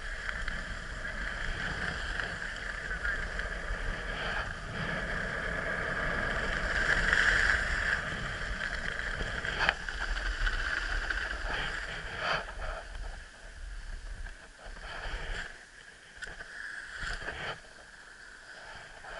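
Skis hissing and scraping over packed snow on a downhill run, mixed with wind rushing past the microphone. A few sharper scrapes come through, and the noise grows quieter and choppier over the last few seconds.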